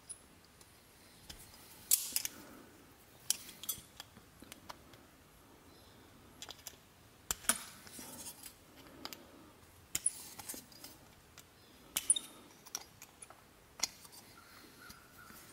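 Small pliers clicking and clinking on thin copper rose petals as the edges are gripped and rolled: scattered light metallic ticks a second or two apart.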